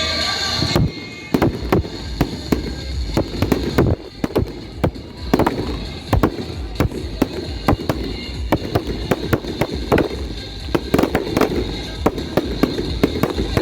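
Fireworks going off in quick, irregular succession: many sharp bangs and crackles several times a second. Music plays briefly before the bangs take over about a second in.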